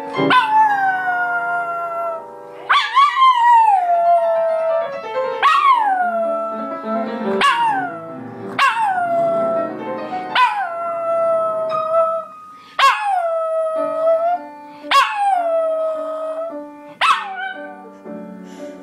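A small long-haired dog howling about ten times in a row, each howl opening high and sliding down to a long held note. Music with held notes plays underneath.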